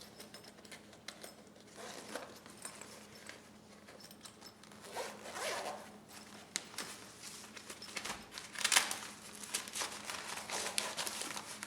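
Zipper of the scan tool's soft carrying case being pulled open in several strokes, the longest about five seconds in and near nine seconds, with handling rustle between them.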